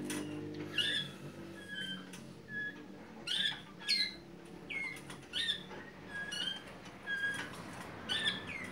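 Malinois (Waterslager) canaries calling: short whistled notes that slide sharply down in pitch, mixed with brief level notes, coming irregularly about once or twice a second.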